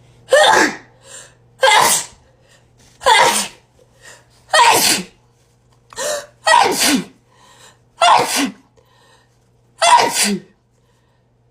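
A woman sneezing in a long fit, about seven loud sneezes in a row roughly one every second and a half, with quick breaths drawn in between.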